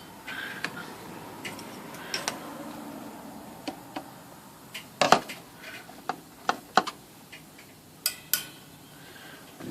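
Light clacks and knocks of a typewriter case cover being handled and set down on a workbench: scattered single hits, the loudest about five seconds in and two close together near eight seconds.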